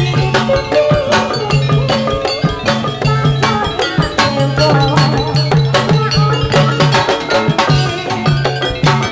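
Jathilan dance accompaniment: loud, fast drumming with mallet-struck metallophone notes and repeated low pitched strokes in a steady driving beat, played through a sound system.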